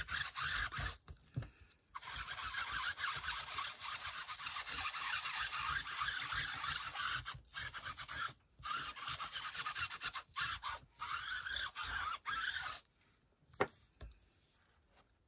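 Quick back-and-forth rubbing strokes of a tool scrubbing over paper laid on lace, pressing the lace pattern into the paper. The rubbing stops a couple of seconds before the end, followed by two light taps.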